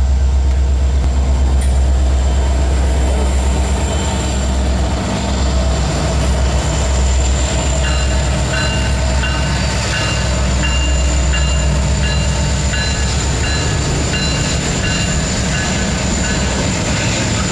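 Union Pacific EMD SD70ACe and SD70M diesel-electric locomotives, each with a two-stroke V16 710 engine, passing close with a loud, deep engine rumble. From about eight seconds in, as the locomotives' wheels reach the spot, short high squeaks from wheels on rail repeat at an even pace.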